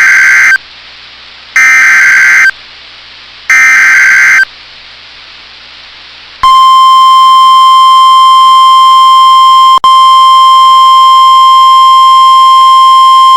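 NOAA Weather Radio Emergency Alert System signal: three screechy SAME digital header bursts, each about a second long and about two seconds apart, then the steady 1050 Hz warning alarm tone starting about six seconds in and holding, with a split-second dropout. It announces the start of a new severe thunderstorm warning broadcast.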